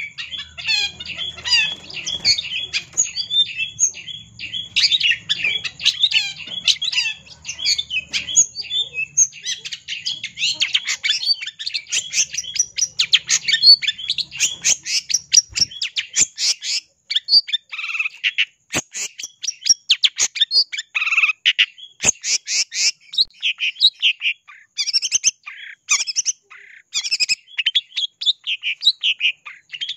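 Long-tailed shrike (cendet) singing a fast, unbroken run of short high chattering notes, the loud, frequent song of a bird kept to provoke rival birds into singing back.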